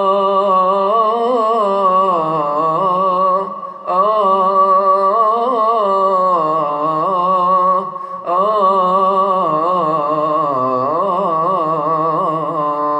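A man's solo voice chanting the key phrase of maqam Hijaz, long melismatic lines with wavering ornaments, in three held phrases broken by short breaths about three and a half and eight seconds in.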